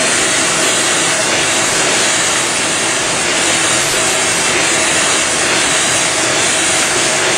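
Kase Equipment nine-colour dry offset cup and pail printer running: a steady, loud hiss with a faint hum of a few steady tones underneath.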